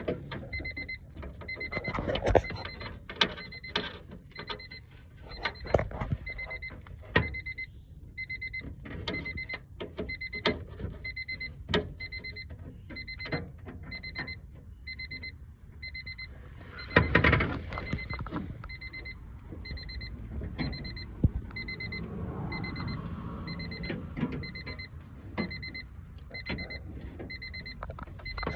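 Honda Civic's dashboard warning chime beeping steadily, about once a second, as with a door left open. Over it come irregular clicks and knocks of hands and tools working the door handle and its linkage inside the door, with a louder clatter about two-thirds of the way through.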